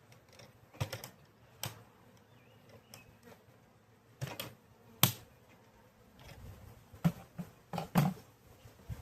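Irregular clicks and knocks of insulated plastic Apimaye beehive parts being handled and fitted together, a few sharp taps spaced unevenly, the loudest a little past the middle.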